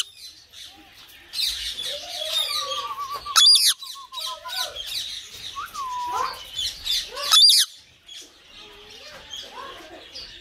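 Lutino Indian ringneck parakeet calling at night: two loud harsh screeches about 3.5 and 7.5 seconds in, with chattering, chirping and warbling calls in between.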